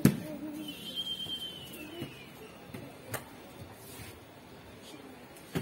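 A few sharp clicks and knocks from a smartphone being handled and repositioned on a selfie stick, the loudest at the very start. A faint whistle rises and falls in the background about a second in.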